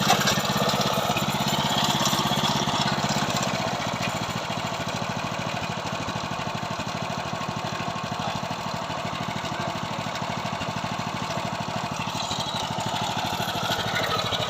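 Small engine of a KB-365 mini tiller running steadily, with a rapid even firing pulse; it eases to a slightly lower level about four seconds in.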